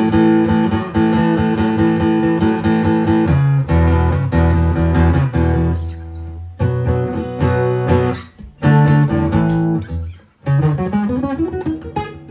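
Acoustic-electric guitar played through an amplifier: chords strummed with quick strokes, low bass notes ringing out a few seconds in, and a rising run of single notes near the end, with two brief stops in between.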